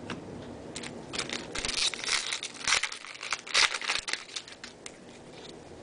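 Foil wrapper of a Topps baseball card pack being torn open and crinkled, a run of sharp crackles from about a second in to about four seconds in.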